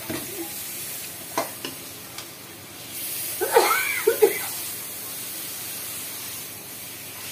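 Chicken pieces sizzling as they fry in hot oil in a wok, with a few sharp clinks of the metal ladle early on. There is a short vocal sound about halfway through.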